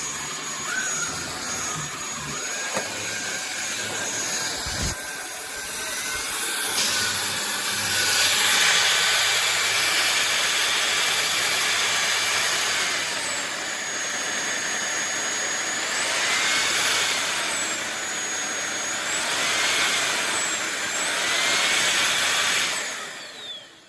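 INTETURE BP20 cordless stick vacuum running, a steady rushing with a high motor whine that dips and comes back up several times in the second half. It gets louder about a third of the way in and shuts off just before the end.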